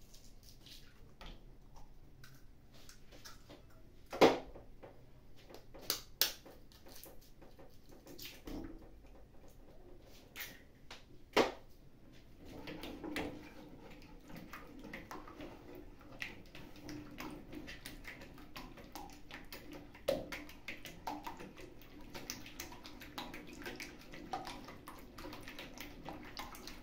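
A few sharp knocks as eggs are cracked on a red plastic mixing bowl. From about halfway, a wire whisk beats the eggs in the bowl: a fast, steady run of light clicks and swishes.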